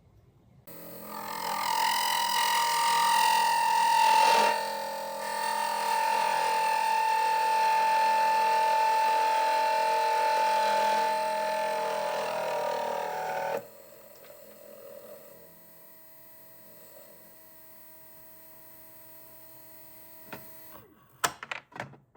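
A shop machine's electric motor running with a steady whine, then cutting off sharply about two-thirds of the way through. A fainter hum stays on afterwards, and a few sharp clicks come near the end.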